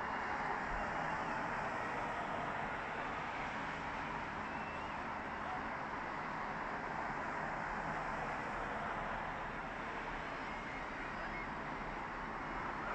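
Distant crowd of swimmers and onlookers shouting and cheering in one steady din as they run into the cold sea.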